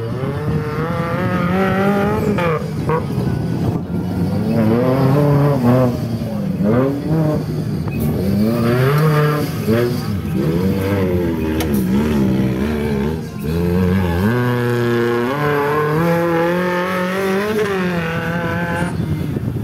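Off-road 4x4 competition vehicle's engine revving hard, its pitch rising and falling again and again as it is driven through the dirt course. About two-thirds of the way in it briefly drops off, then climbs and holds high revs for several seconds.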